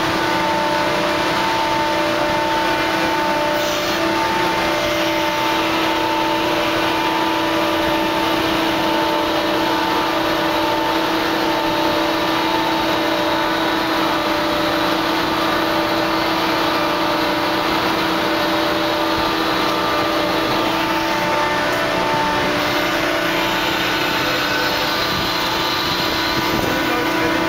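Freefall lifeboat davit's lowering machinery running steadily: a constant mechanical drone with a steady hum and a higher tone that pulses about once a second.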